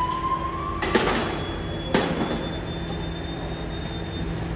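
BYD electric garbage truck's bin-lifting and compacting machinery working: a steady hum with a faint whine that rises and stops about a second in, two sharp metal clunks about a second apart, then a thin high squeal lasting a couple of seconds.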